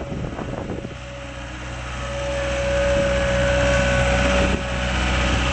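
2010 John Deere 318D skid steer's turbo diesel engine running, with a few clanks in the first second. It then grows louder over about two seconds as it revs up, holding high revs with a steady high whine.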